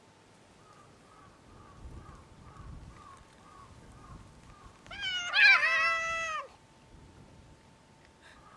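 A stray cat gives one loud, drawn-out meow about five seconds in, rising and then falling in pitch and lasting about a second and a half.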